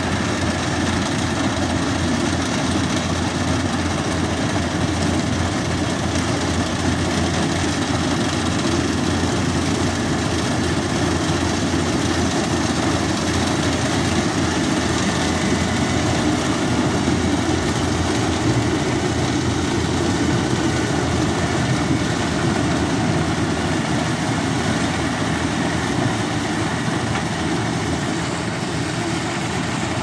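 Yanmar DC70 combine harvester running steadily under load as it cuts and threshes corn, its engine and machinery making a constant loud din.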